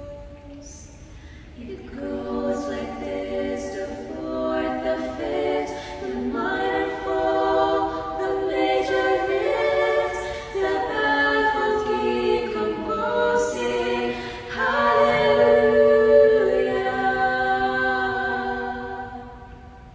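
Three voices, alto and soprano among them, singing a cappella in close harmony. They hold sustained chords that swell and change, blurred together by heavy room reverb. The pitch is not perfect.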